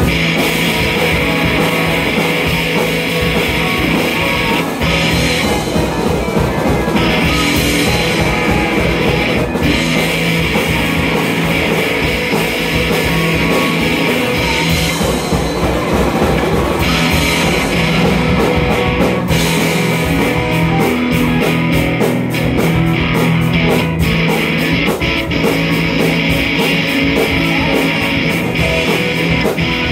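Rock band playing loud and steady: electric guitars over bass and drums, amplified through the room.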